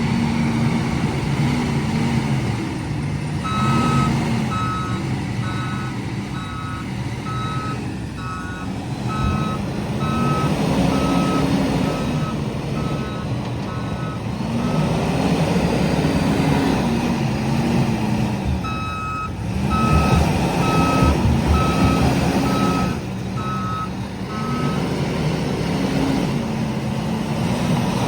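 JCB loader's diesel engine revving up and down as it works. A reversing alarm beeps about one and a half times a second in two long runs, from a few seconds in to about halfway, then again from about two-thirds through.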